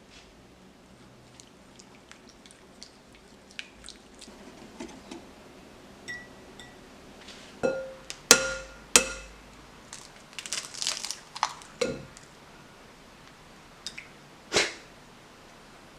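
Kitchen utensils tapping and clinking against a mixing bowl. A few louder strikes ring briefly, and a quick run of small clicks comes about halfway through.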